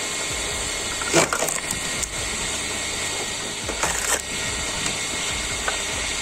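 Homemade log splitter's blade forcing through a log, the wood cracking and splitting over the steady running of the machine. There is a sharp crack about a second in and another about four seconds in.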